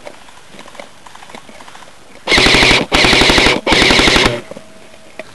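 Airsoft rifle fired close by in three quick full-auto bursts, each a rapid rattle of shots, starting about two seconds in.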